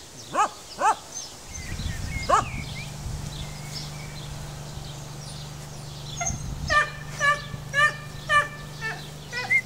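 Dog whining and yipping: a few short rising-and-falling whines in the first seconds, then a run of short yips about two a second near the end. A steady low hum runs underneath from about a second and a half in.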